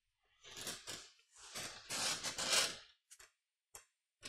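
Handling noises at a BGA rework station while a processor chip is set on a laptop motherboard: two stretches of rubbing and scraping, then a few small, short clicks near the end.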